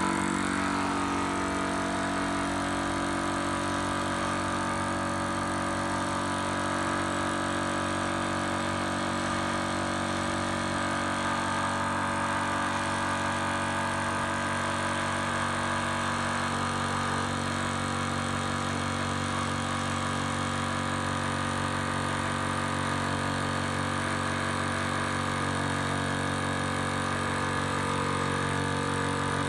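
Zhongyan electric PCP high-pressure air compressor running steadily under load partway through filling an 18 cu in air tank toward 4500 psi. It is a constant mechanical hum with no change in pitch or level.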